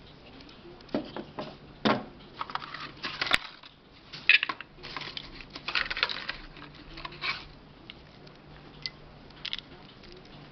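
Handling noises of an unboxing: hard plastic refillable ink cartridges clicking and knocking as they are handled and set down on a table, then cardboard box flaps rustling and scraping as a hand rummages in the box. The clicks come in irregular bunches over several seconds, with a sharp knock a little over three seconds in, and the noises thin out after about seven and a half seconds.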